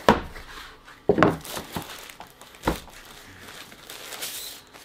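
A flat cardboard box being opened and a photo frame pulled out of its paper and plastic packaging: three sharp knocks of cardboard handling, at the start, about a second in and near three seconds, with bursts of crinkling and rustling between them.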